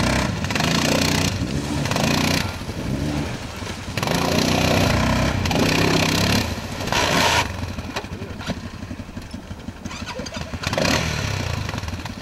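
Truck engine running under way, revving up and easing off several times, with louder surges near the start, through the middle and again near the end.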